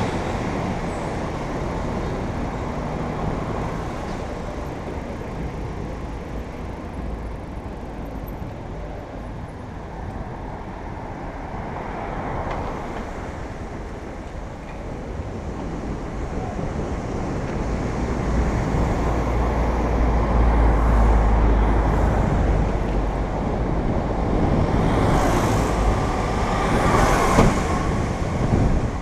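Road traffic going by, heard from a moving bicycle, with low wind rumble on the microphone that grows in the second half. Near the end a louder hissing pass, like a vehicle going by close.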